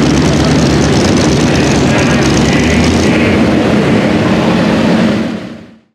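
Supercharged engine of a super modified two-wheel-drive pulling truck running loud and steady under load as it pulls the sled; the sound fades out near the end.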